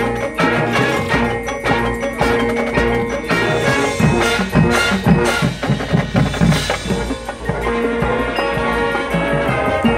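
High school marching band playing its field show: a percussion-led passage of quick struck notes from the front ensemble's marimbas and other mallet keyboards over drums, with held chords building near the end.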